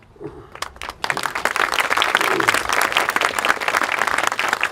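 Crowd applauding: a few scattered claps, then full applause from about a second in.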